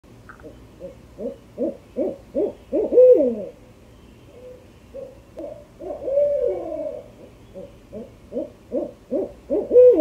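Barred owl hooting: a run of short hoots coming faster and faster ends in a long hoot that slides down in pitch, about three seconds in. A long drawn-out hoot follows near the middle, then a second quickening run that ends in another long, falling hoot near the end.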